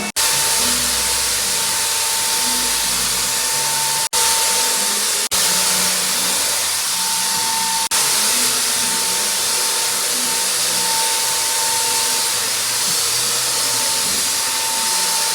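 Steady, loud machine noise: a dense hiss with a constant whining tone, broken by brief cuts about four, five and eight seconds in.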